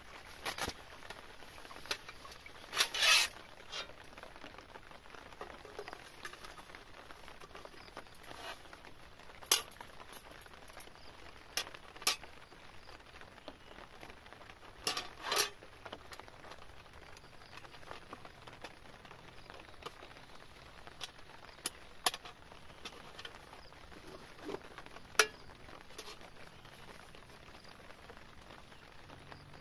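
Irregular short scrapes and clicks of a small metal tool working on a thin wooden board, a dozen or so strokes with pauses between, two of them longer scrapes about three seconds in and again near the middle, over a faint steady hiss.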